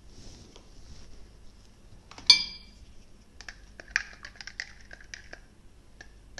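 Water poured faintly into a small plastic measuring beaker. Then one sharp clink of a metal spoon with a brief ring, followed by about two seconds of light clicks as the spoon stirs and taps against the beaker's sides.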